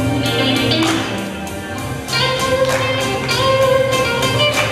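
Blues music with guitar over a steady beat. It eases off briefly about two seconds in, then comes back louder.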